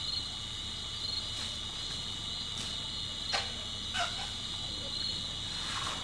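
Steady chorus of crickets and other night insects trilling without a break, with two short sharp sounds about three and four seconds in.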